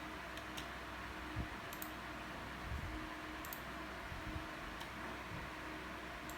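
Steady hiss of room noise with a few faint, sharp clicks spread through it, and a soft low thump about one and a half seconds in.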